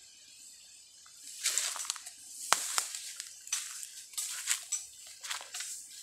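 Dry leaves and twigs crunching and rustling in irregular bursts from about a second and a half in, with a few sharp snaps among them.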